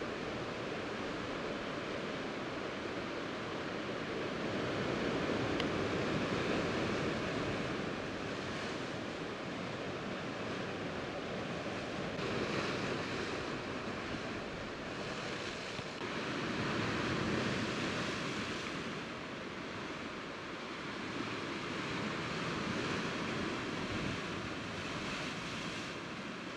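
Sea surf washing over shore rocks: a continuous rush that swells and eases about every five or six seconds.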